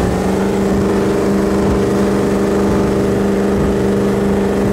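Performance powerboat's engine running at a steady pitch while the boat is under way, over a rush of wind and water noise.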